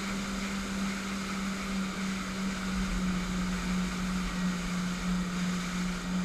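Boat engine running at a steady speed, a constant low hum, with rushing wind and water noise over it.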